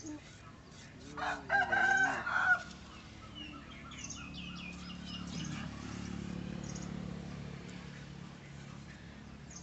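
A rooster crowing once, loud, about a second in, followed by fainter short bird calls. A low steady hum swells and fades underneath.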